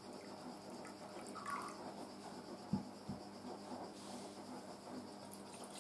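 White wine vinegar poured from a bottle into a plastic measuring jug, faintly, with two soft thumps about halfway through.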